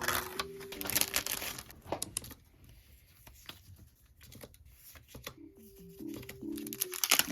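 Packaging material being handled, crinkling and tearing: a dense stretch for the first two seconds, then scattered light clicks, and another loud crinkling burst near the end. Soft mallet-percussion background music comes back in over the second half.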